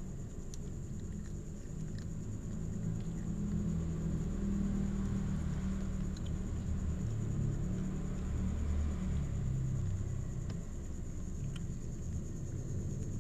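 Cat growling low and continuously while guarding its fish from a kitten; the growl swells in the middle and eases toward the end.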